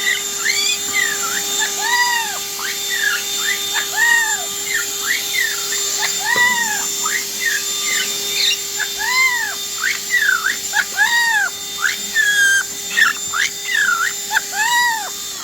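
A parrot calling over and over in short rise-and-fall whistling squawks, about one a second, over the steady whine of a small vacuum cleaner's motor. The vacuum cuts off at the very end.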